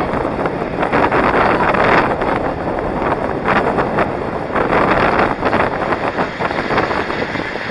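Wind buffeting the microphone of a camera on a moving inline skater, over the noise of skate wheels rolling on asphalt, coming in uneven surges.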